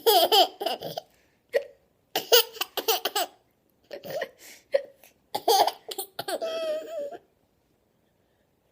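A toddler with the hiccups laughing in several high-pitched bouts, broken by short sharp hiccups, one about one and a half seconds in and another near five seconds. A long squealing laugh comes near the end.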